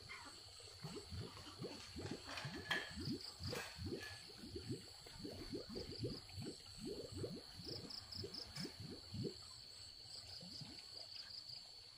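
Frogs calling in a loose chorus: many short, low, overlapping calls that thin out near the end, over a steady high-pitched insect trill.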